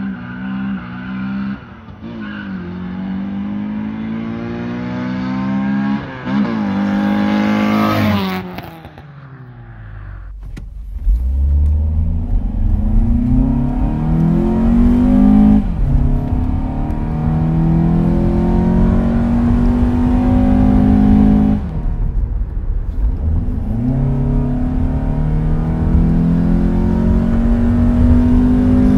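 A car engine pulls hard through the gears, its pitch climbing and dropping back at each upshift. About ten seconds in, the sound changes to a deeper, fuller run from a 2006 Honda Accord's K24A8 2.4-litre four-cylinder, tuned with KTuner and RDX injectors, accelerating at full throttle. Its pitch climbs and falls back at two more shifts.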